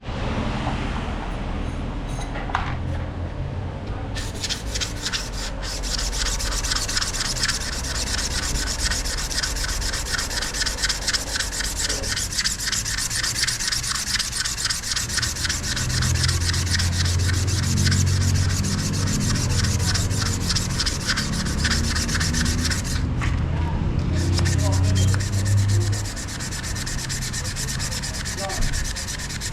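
Fast, repeated scrubbing or rubbing strokes, like a brush worked hard over a part, over a steady low hum. The scrubbing pauses briefly about 23 seconds in.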